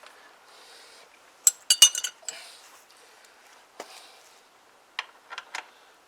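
Metal hand tools and parts clinking: a cluster of sharp, briefly ringing clinks about a second and a half in, then a few lighter taps later.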